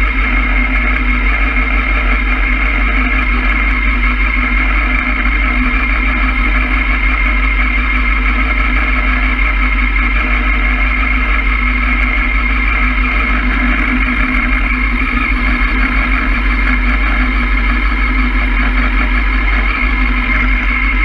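Honda Hornet's inline-four engine idling steadily, with the motorcycle at a standstill.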